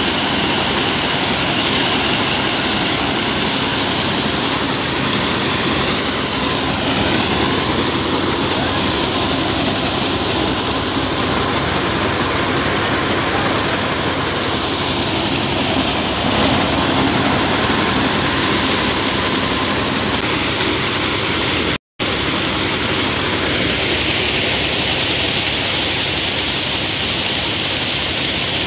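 A paddy thresher running steadily: a constant drone of its engine and drum, with a rushing noise of straw and chaff being blown out. The sound cuts out for an instant about three-quarters of the way through.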